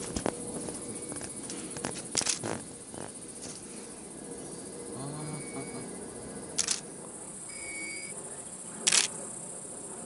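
Nikon DSLR on a motorized panoramic head taking an automated sequence of shots. The shutter clicks three times a few seconds apart, with a brief motor hum and short beeps between shots, over a steady high-pitched insect buzz.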